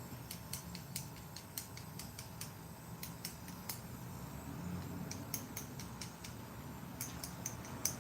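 Light, irregular clicks and ticks of small hand tools being handled during soldering work, over a faint low hum.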